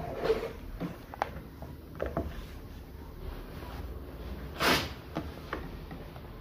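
Scattered light knocks and clicks over a low steady hum, with one brief loud rustle about three-quarters of the way in.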